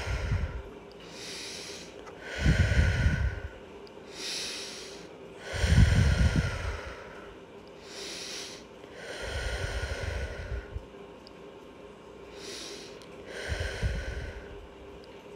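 A woman breathing slowly and deeply in a yoga forward bend, with repeated audible breaths in and out about every second or two. Several of the breaths come with low puffs, the loudest around two and a half and six seconds in.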